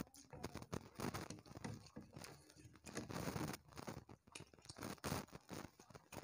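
Two people eating rice and fish curry with their hands: fingers mixing rice and breaking up fish on ceramic plates, along with chewing, in many short irregular clicks and crackles.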